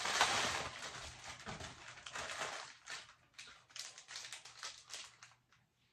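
Clear plastic MRE packaging crinkling as it is opened and a candy packet is pulled out. Dense rustling for the first few seconds, then scattered crackles that die away.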